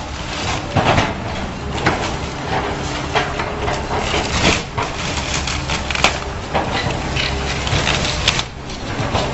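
Wood-frame house being demolished by a heavy machine: its engine runs steadily under irregular cracking, crunching and splintering of wooden framing being torn apart.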